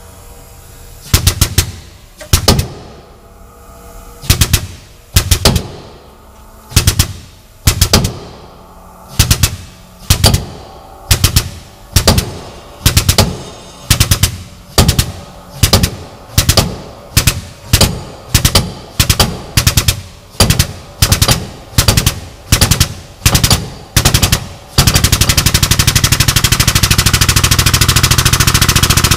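20-ton air-over-hydraulic jack's air pump chattering in about two dozen short bursts that come closer and closer together, then running without a break for the last four seconds or so. The jack is under load, pressing a seized dozer blade mount out of the frame.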